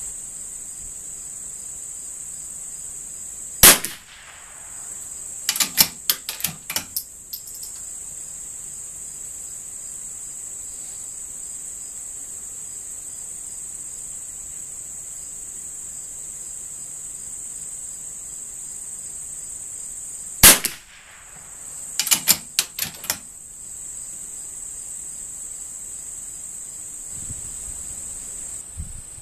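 Two shots from a scoped .22 rimfire bolt-action target rifle, about 17 seconds apart. Each is followed a couple of seconds later by a quick run of metallic clicks from the bolt being worked. Crickets chirp steadily throughout.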